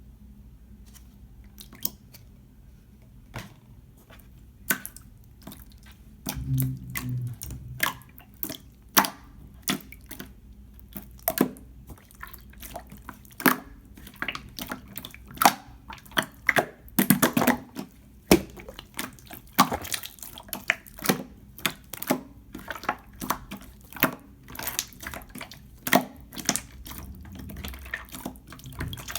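Clear slime being squished and poked by hand, making irregular wet clicks and pops. They come sparsely at first and then several a second from about eight seconds in.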